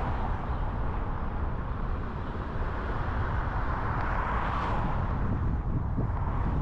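Steady road noise of a car driving on a city street: a low rumble with tyre hiss, swelling briefly about four and a half seconds in.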